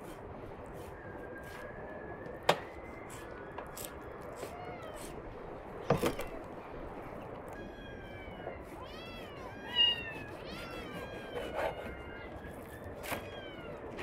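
Large knife slicing raw beef on a wooden cutting board, with a few sharp knocks of the blade on the board. From about the middle on, an animal calls over and over in short, high calls that rise and fall.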